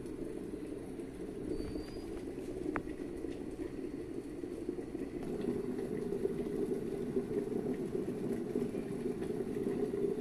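Water boiling: a steady bubbling rumble that grows a little louder about halfway through.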